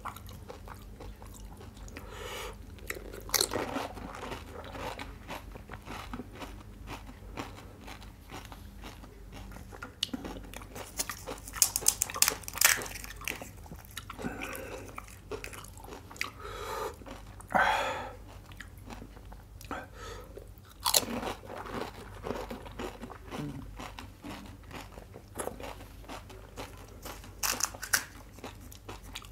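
Close-miked eating of pani puri: crisp hollow puri shells crunching between the teeth in clusters every few seconds, with softer chewing in between.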